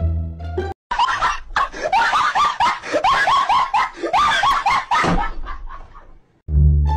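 Shrill, screaming laughter: a fast run of high squeals, each rising in pitch, fading out near the end.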